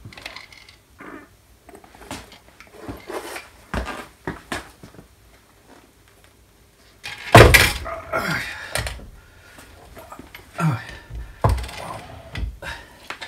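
A heavy drill-press XY table being lifted and set onto the machine's knee: scattered metal knocks and scrapes, with the loudest thump about seven seconds in as it lands, then a few more clunks as it is shifted into place.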